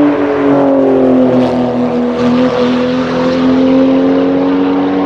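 Sports car engine held at high revs under sustained throttle on the circuit. Its note sags slightly and then climbs gently back.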